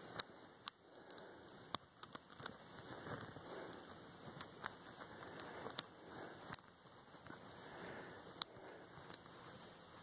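Lock pick and tension wrench working the five brass pin tumblers of a 70 mm Chateau C870 padlock: faint scraping and rustling, with about ten sharp little clicks at irregular intervals.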